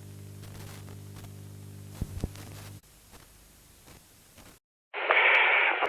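A steady low electrical hum under hiss, with two sharp clicks about two seconds in. The hum then drops out, leaving faint hiss, then a moment of dead silence. Near the end a loud, thin-sounding rush of noise cuts in abruptly.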